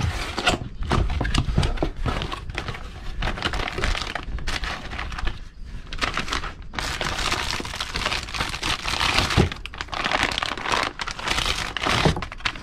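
A cardboard box being opened and handled: flaps scraping and folding, with plastic-bagged chainsaw kit parts crinkling and knocking inside, an irregular run of rustles and clicks.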